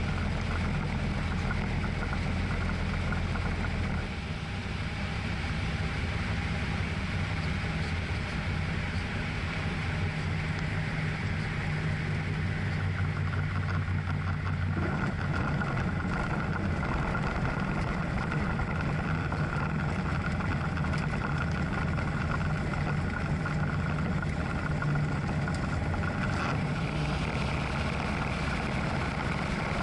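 Tecnam P2002 Sierra's Rotax 912 flat-four engine and propeller droning, heard inside the cockpit. The note drops about four seconds in, as power comes back for the landing, and grows brighter again around fifteen seconds in, as power is added for the touch-and-go takeoff.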